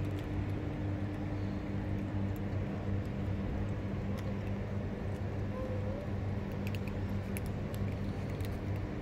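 Steady low mechanical hum of running machinery, holding an even drone, with a few faint clicks late on.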